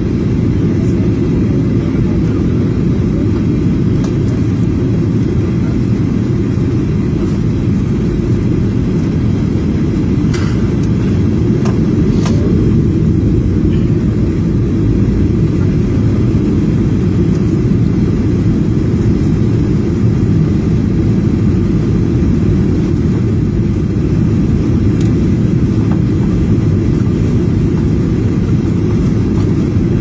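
Steady low cabin roar of a Boeing 737 airliner in descent toward landing: engine and airflow noise heard inside the cabin.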